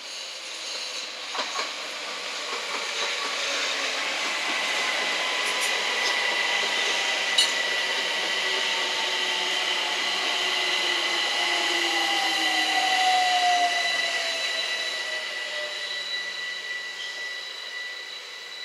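London Overground Class 378 electric multiple unit coming in along the platform. The rumble of its wheels on the rails builds, with a steady high whine and lower whines that fall in pitch as it passes and slows, then fades near the end. A few sharp clicks from the wheels over the track sound early on.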